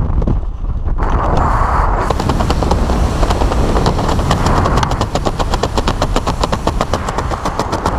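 Wind rushing over a skydiver's helmet camera microphone under an open parachute; from about two seconds in it turns into a rapid, steady flutter.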